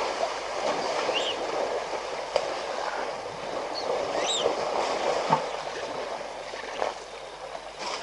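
Elephants wallowing in a muddy waterhole: a steady sloshing and splashing of water, with a few short bird chirps.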